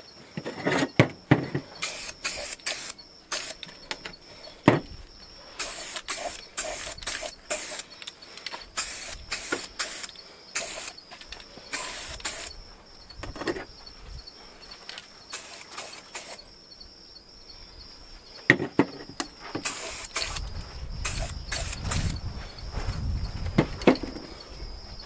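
Aerosol spray-paint can spraying steel tubing parts in many short hissing bursts, interrupted by a few sharp knocks as parts and the can are handled.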